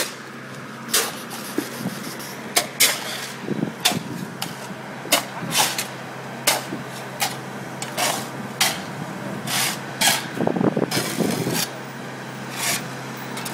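Shovels scraping and digging into dirt and broken asphalt, and a pick striking, in irregular strokes about every half second to second, over the steady hum of an engine running.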